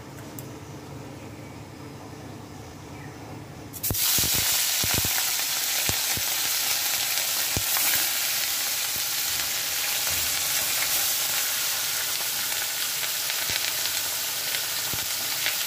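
Pieces of turmeric-rubbed fish going into hot oil in an iron kadai about four seconds in, setting off a sudden loud, steady sizzle of deep-frying with scattered crackling pops. Before that there is only a low steady hum.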